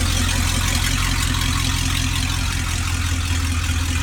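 1956 Chrysler's engine running steadily with a low, even hum and a constant hiss over it.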